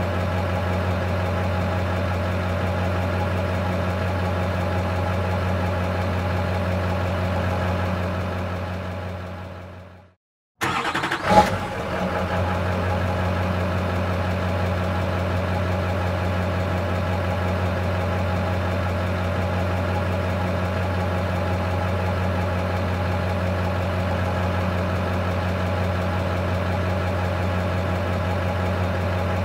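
Diesel engine of a Class A tractor-trailer idling steadily. About ten seconds in, the sound fades out to silence for a moment, then returns with a sharp knock and the idle carries on unchanged.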